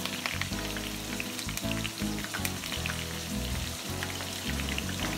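Curry leaves, whole dried red chillies and fenugreek seeds sizzling in hot oil in a wok, with scattered crackles and pops.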